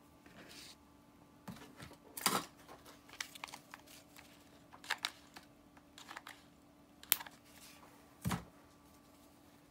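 Paper and ribbon rustling as a bow is handled and glued onto a paper tag with a hot glue gun, with scattered small clicks and taps and a dull knock near the end.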